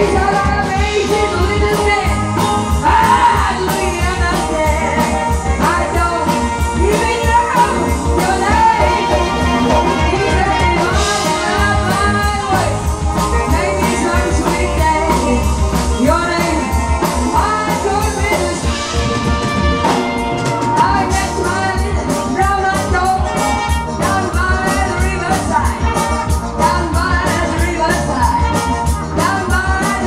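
A woman singing into a microphone over amplified backing music with a steady beat.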